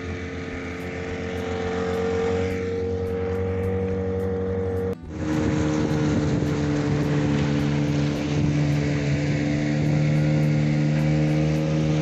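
Boat's outboard motor running steadily while the boat is under way. About five seconds in the sound breaks off for a moment and comes back at a lower, steady pitch.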